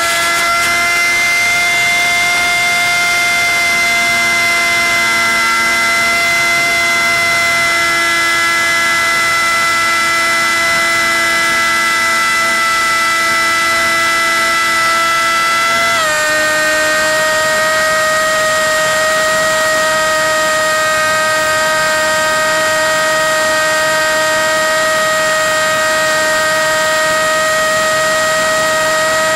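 RC plane's motor whining steadily at high throttle, picked up by the onboard FPV camera; the pitch steps down slightly about sixteen seconds in.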